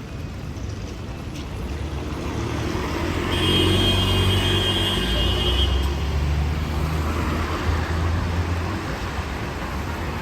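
Road traffic on a wet city street: a heavy vehicle's engine runs close by, getting louder about three seconds in, with a high steady whine for about two seconds, then easing off over the hiss of traffic.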